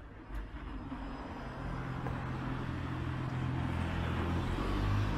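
A car approaching and passing, its engine hum and tyre noise growing steadily louder.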